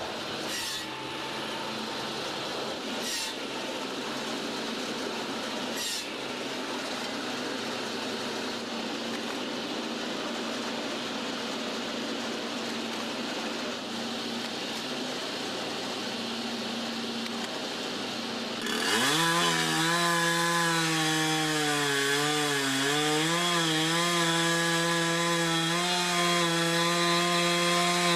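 Wood being sawn by power tools: a steady noisy cutting sound with a few sharp knocks. About two-thirds of the way in, a louder chainsaw starts running, its pitch dipping and recovering as it works.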